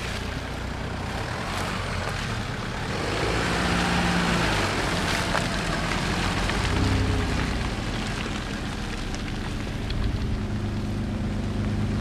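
Off-road 4x4 engines running as a two-door Jeep Wrangler and another SUV drive past slowly through deep mud. The engine note rises as the Jeep comes close, about halfway through, with the rough hiss of tyres in mud underneath.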